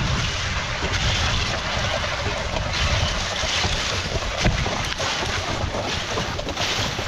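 Wooden dog sled gliding along a snowy trail: runners hissing and scraping over the snow in a steady rush, with wind rumbling on the sled-mounted microphone.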